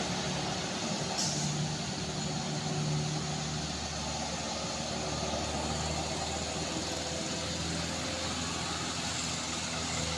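Diesel engine of a light cargo truck running steadily as it climbs a steep grade away from the listener. A brief high hiss about a second in.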